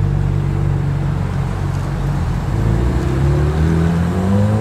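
Car engines running as vehicles pull away slowly; about three seconds in, an Audi R8 GT Spyder's V10 begins to rev, its pitch rising steadily toward the end.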